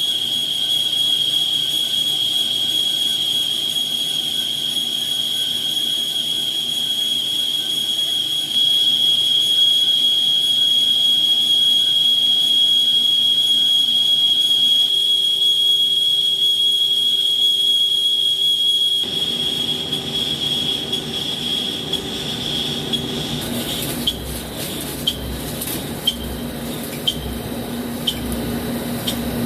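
Lathe rough-turning a cast iron tire mold segment, with a steady high-pitched whine. About 19 s in, a rougher cutting noise rises underneath, and near the end sharp ticks come about once a second.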